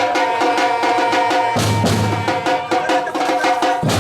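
Music with a quick, even percussion beat over held tones; a deep bass comes in about one and a half seconds in.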